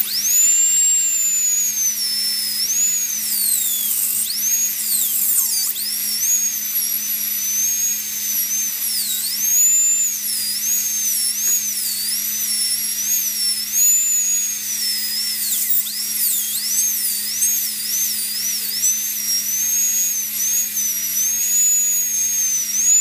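High-speed dental handpiece whining as its bur cuts through a dog's upper fourth premolar to separate the two front roots. It starts at once, and its pitch keeps dipping and recovering as the bur bites into the tooth under changing load.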